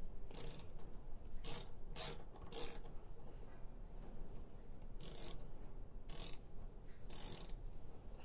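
Hand ratchet clicking in about seven short bursts as bolts on a motorcycle's tank side cover are tightened, with a pause of about two seconds in the middle.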